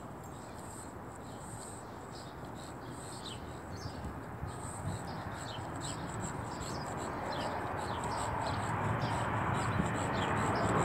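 Small birds chirping in quick, short falling notes, several a second, over a steady outdoor hiss. From about halfway in, a distant engine rumble grows steadily louder.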